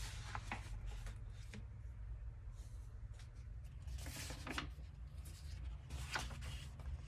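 Large paper pages of a softcover book being turned and unfolded by hand: dry rustling and swishing of paper, loudest about four seconds in and again about six seconds in, over a low steady hum.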